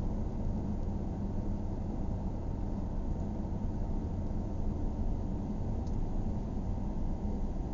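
Steady low rumble of a car driving on a paved road, heard from inside the cabin: tyre and engine noise at a constant, unhurried speed.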